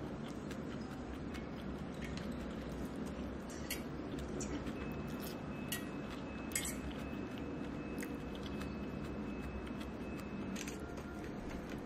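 Kitchen handling sounds: scattered light clicks and taps of utensils and dishes over a steady low hum. A faint thin high tone holds through the middle of the stretch.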